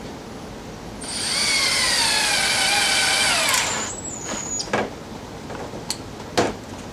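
DeWalt cordless drill running steadily for about two and a half seconds on a wooden chair spindle, its whine sliding down in pitch as the trigger is let go and the motor spins down. A few sharp knocks follow as the drill is lifted and handled.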